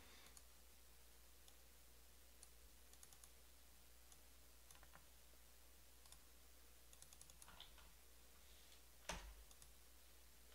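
Near silence with faint, scattered clicks in small quick clusters, like keys typed and a mouse clicked, and a single dull thump about nine seconds in.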